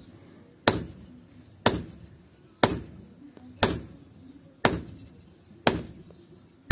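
A helper's hammer striking a red-hot cleaver blank, forged from old leaf-spring steel, on a steel anvil. Six blows come about one a second, each a sharp clang with a high metallic ring that fades before the next.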